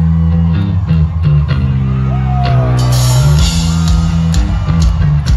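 Electric bass guitar playing a loud, repeating riff of low notes through a concert PA, heard from the audience.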